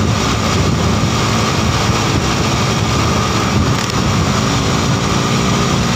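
Modenas NS200 motorcycle's single-cylinder engine running steadily while riding, mixed with wind buffeting the microphone.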